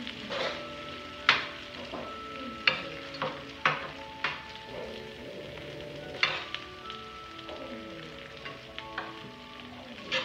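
Eating at the table: several sharp clinks and scrapes of a spoon and fingers on plates and a cast-iron sizzling plate, with a faint crackle between them. Soft background music with held notes runs underneath.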